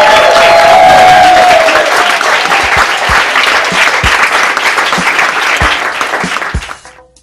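Sustained applause from a crowd and cast clapping, dense and steady, fading out in the last second.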